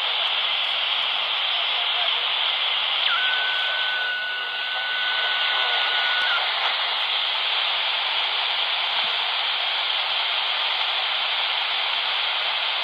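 Magnum 1012 handheld CB radio on 27.555 MHz hissing with open-channel static from its speaker. A steady high whistle of a carrier on the channel comes in about three seconds in and stops about three seconds later.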